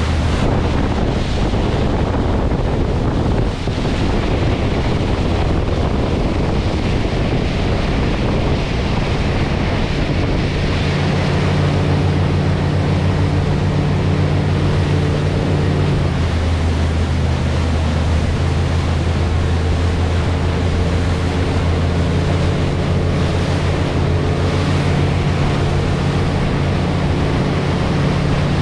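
Motorboat engine running steadily at speed while towing, its low drone mixed with wind buffeting the camera microphone and the rush of the churning wake. The engine's note changes about halfway through.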